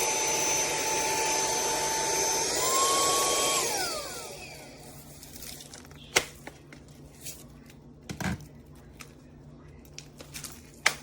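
Handheld cordless vacuum running with a steady high whine. Its pitch rises a little about two and a half seconds in, then it is switched off and the motor winds down. A few sharp clicks and knocks from handling follow.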